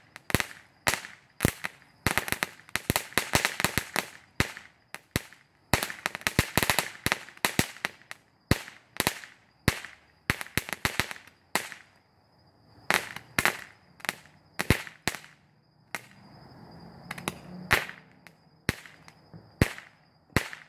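Small 'Cracker Barrel' ground firework crackling: rapid clusters of sharp pops that thin out after about twelve seconds into scattered single pops as the firework burns down.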